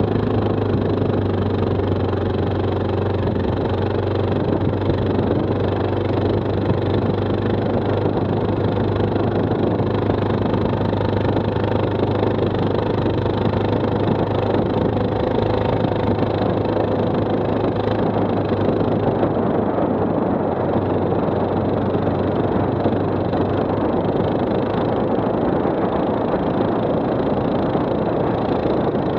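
Stels 800D ATV's engine running at a steady pitch, with an even noise over it and no marked revving.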